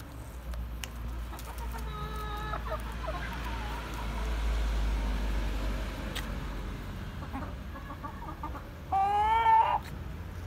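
Chickens clucking around a hand offering bread, with one louder, pitched call from a bird about nine seconds in that lasts just under a second.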